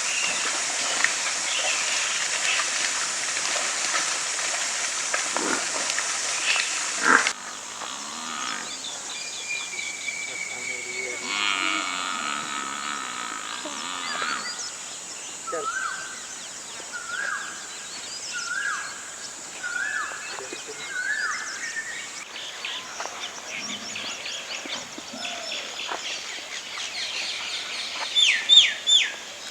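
Outdoor nature sound with animal calls: a hissing background that changes abruptly twice, a series of about five rising calls in the middle, and quick high chirps near the end.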